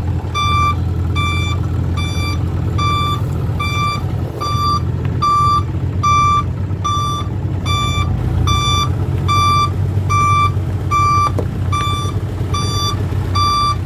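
Flatbed truck's reverse alarm beeping steadily, about two beeps a second, as the truck backs up, over the low steady running of its engine.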